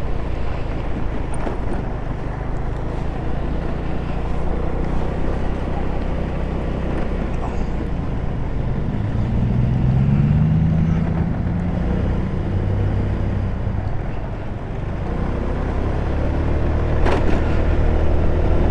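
GY6 single-cylinder four-stroke scooter engine running steadily on the move, climbing in pitch about ten seconds in as the scooter speeds up, then holding steady. A short knock comes near the end.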